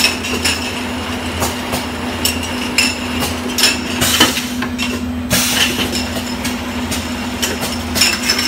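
Automatic liquid filling and capping machine running: a steady motor hum under irregular clicks and clinks from its mechanism and the glass bottles on its conveyor.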